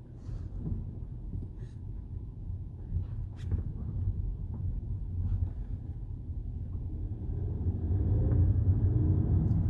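Suspension strut knocking on a moving car: a few short, sharp knocks over a steady low road rumble, the rumble growing louder near the end.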